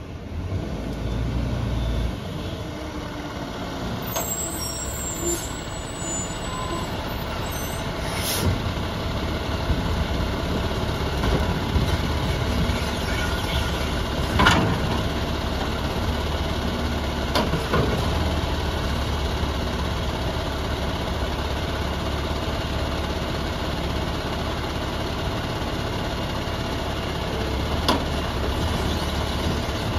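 Peterbilt garbage truck with a New Way Sidewinder automated side-loader running steadily while its hydraulic arm lifts and dumps a trash cart, with a few sharp knocks as the cart is emptied into the hopper.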